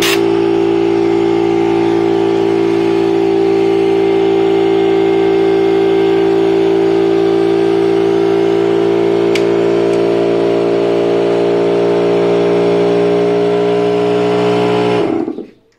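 Stanley air compressor running steadily, a loud even hum with a hiss of air over it, cutting off abruptly near the end.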